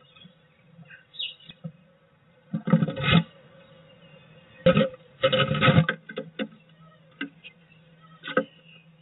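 Blue tit scrabbling, pecking and tapping on the wooden floor and walls of a nest box, picked up by a microphone inside the box: two clusters of loud scraping knocks, then scattered single taps. A faint steady hum runs underneath.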